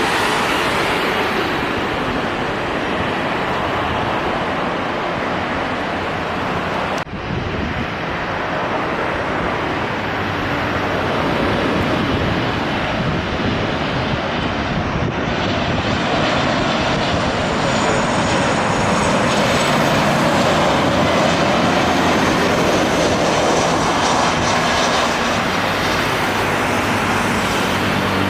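Jet aircraft engines making a loud, steady rushing noise, with a high turbine whine that slowly falls in pitch in the second half. There is a brief dropout about seven seconds in.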